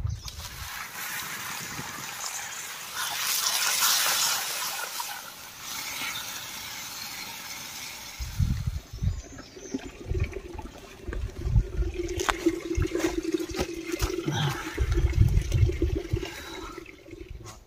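Water rushing or gushing, loudest a few seconds in. In the second half it gives way to irregular low thumps over a steady hum.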